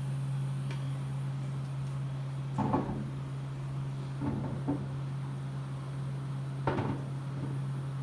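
A few short knocks and clunks, about three of them, over a steady low hum. They are typical of roll-cage tubing and clamps being handled and set in place.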